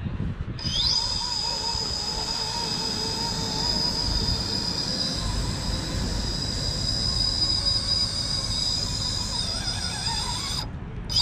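RC rock crawler's electric motor and drivetrain whining as the truck creeps slowly up a rock face: a steady high whine with a lower tone that wavers with the throttle, over a low rumble.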